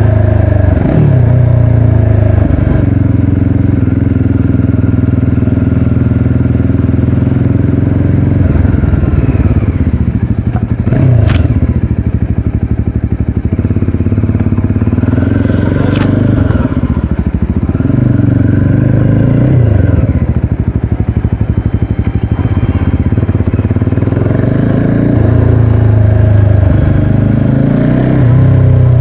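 Motorcycle engine under way, its pitch climbing and then dropping several times as it revs up and shifts through the gears.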